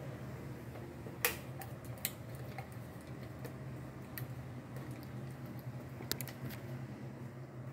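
Indoor room tone: a steady low hum with a handful of short sharp clicks, the loudest about a second in.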